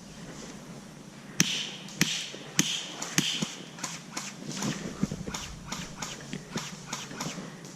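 Footsteps of a player walking. A sharp step about every 0.6 s for a few steps, then a run of lighter, quicker clicks and steps.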